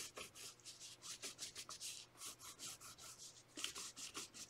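Crayon rubbing on sketchbook paper in quick back-and-forth strokes, several a second, as a fish outline is traced over.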